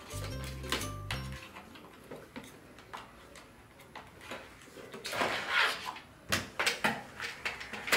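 Plastic toy kitchen pieces and a plastic case being handled on a hard floor: scattered clicks and knocks, a longer rustle about five seconds in, then a quick run of clicks. Background music cuts off about a second in.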